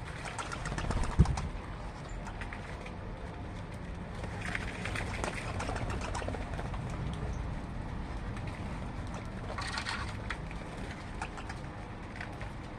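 Birds calling, with brief bursts of calls about five seconds in and again near ten seconds, over a steady low hum; a single knock sounds about a second in.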